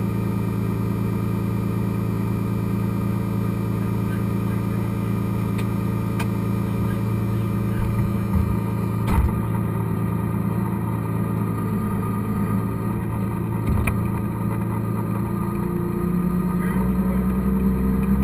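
Cummins diesel pickup engine idling steadily with its exhaust stack through the hood, heard from inside the cab. Two light knocks about halfway, then near the end the engine note rises and grows louder as it picks up revs.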